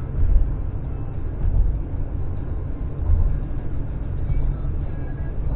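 Car driving across a bridge deck, heard from inside the cabin: a steady low rumble of tyre and road noise with wind.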